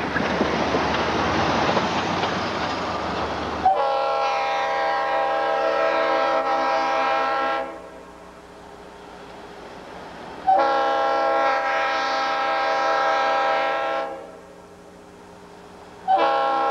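Diesel freight locomotive's air horn sounding a chord in two long blasts and a short one, the opening of the grade-crossing signal, each blast starting sharply. Before the first blast, a rushing noise from the approaching train.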